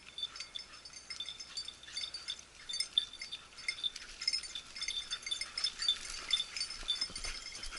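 A small metal bell on a hunting dog's collar tinkling irregularly as the dog works through the scrub, with clear rings at a few fixed high pitches.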